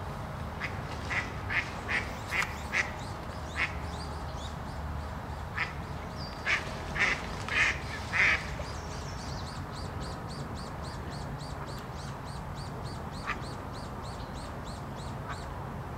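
Mallard quacking under attack by a mink: about a dozen loud, harsh quacks in two quick runs during the first half, then a single faint one later. Through the second half a high chirping repeats quickly and evenly, about three or four times a second.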